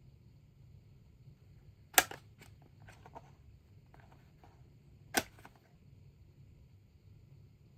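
Two sharp clicks about three seconds apart, each followed by a few softer ticks and rustles, from handling the keyboard and its packaging.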